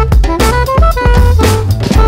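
Loop-built music track: a drum kit beat with kick and snare hits, a deep bass line, and a melody of short held notes.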